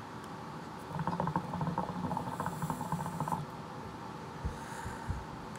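Hookah water base gurgling as smoke is drawn through it: a rapid bubbling from about one second in until about three and a half seconds in, then a soft exhale of the smoke.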